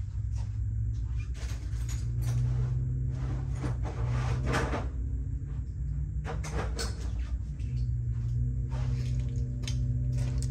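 Scattered clunks and knocks of things being handled and set down, over a steady low hum.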